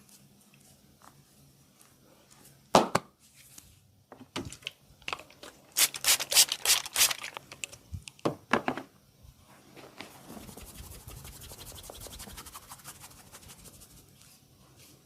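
Massage cracking sounds made by hands on the person being massaged. A single sharp crack comes about three seconds in, then a string of loud snaps, then several seconds of fast, fine crackling that fades near the end.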